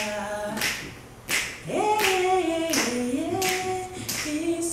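A woman singing unaccompanied in long held notes, with sharp claps keeping a steady beat about every two-thirds of a second. The singing breaks off briefly a little after a second in and comes back on a higher note.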